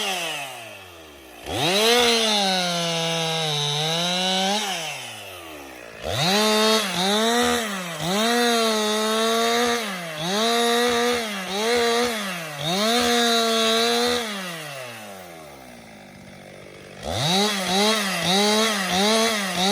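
Two-stroke chainsaw revved in repeated bursts while cutting a tree. Its pitch dips within the bursts as the chain bites into the wood, and it drops back to idle between bursts.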